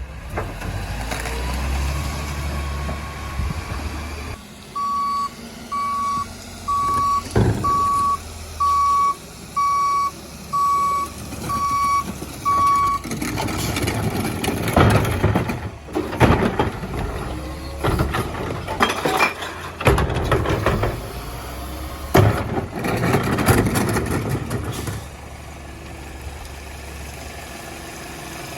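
Garbage truck's diesel engine running, then its backup alarm beeping about once a second for some eight seconds. After that comes a long stretch of loud rattling and banging with several sharp bangs, from the truck loading and packing the recycling, quieting near the end.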